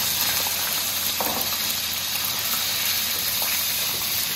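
Chicken pieces, freshly added to hot oil in a kadhai (wok), sizzling as they fry with a loud, steady hiss.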